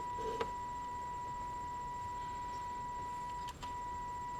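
Steady high-pitched test tone coming from the Midland 13-862B CB radio's speaker, showing that the radio is receiving. A click sounds just after the start, and near the end the tone drops out for a moment with a click.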